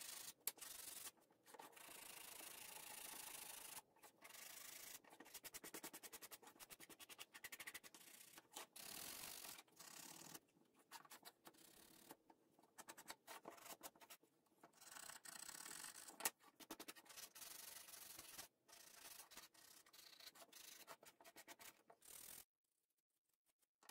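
Hand sanding scroll-sawn wooden cutouts with sandpaper: faint, quick back-and-forth rubbing strokes broken by short pauses, stopping about a second and a half before the end.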